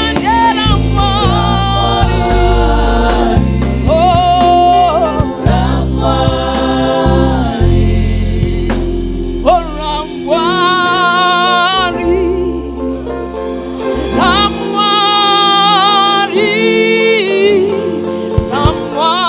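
Live gospel worship song: a choir of singers holding long, wavering notes in phrases over a sustained low instrumental accompaniment.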